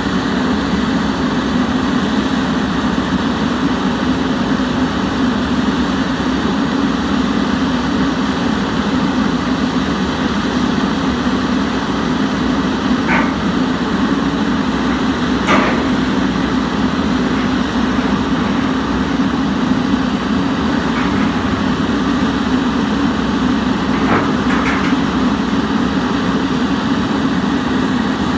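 JCB 220 tracked excavator's diesel engine running steadily while it works its boom and bucket, with a few sharp knocks about halfway through and a couple more near the end.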